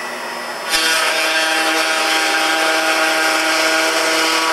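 Table-mounted router running at speed with a steady whine. About two-thirds of a second in, the sound gets louder and fuller as the bit cuts into the plywood drawer piece being fed past it, cutting a groove for a lock-style drawer corner joint.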